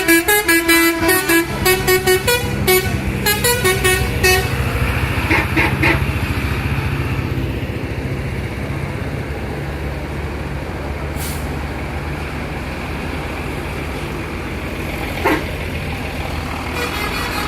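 Bus 'telolet' musical horn playing a rapid tune of short repeated notes for the first four seconds or so. Then the bus's diesel engine runs steadily, with a few short horn notes around five seconds in and the tune starting again just before the end.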